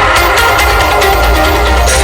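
Loud electronic dance music with heavy, booming bass and a steady drum beat, played through a large DJ sound system.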